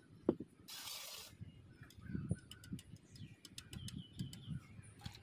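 Clicks and clinks of cups and utensils being handled while drinks are made, with a short hiss about a second in.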